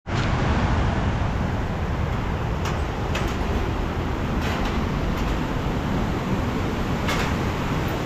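Steady rushing of a rocky river flowing under a suspension bridge, with a few short knocks from footsteps on the wooden planks of the bridge.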